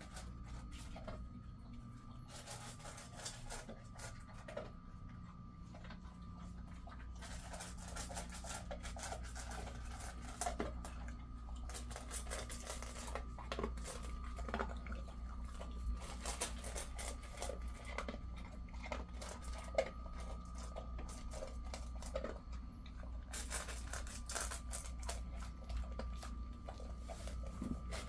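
Jindo dog eating from a stainless steel bowl: irregular crunching and chewing, with small clicks against the metal bowl.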